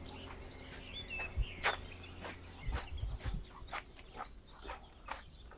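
Birds chirping: a run of short, sharp chirps, a few each second, with some brief curving calls just after a second in. A few low thumps come in around the middle.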